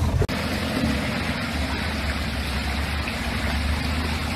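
Suzuki 4x4's engine running steadily at low revs, over the even rush of stream water flowing around the rocks.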